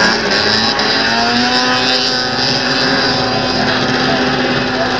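Racing snowmobile's two-stroke engine running at high revs as the sled takes a turn and pulls away, its pitch rising over the first second or so and then holding steady.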